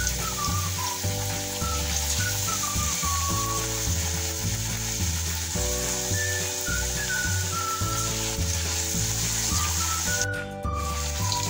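Buckwheat-flour pakoras deep-frying in hot oil, a steady sizzle that breaks off briefly near the end. Background music plays under it, a slow melody over a bass line.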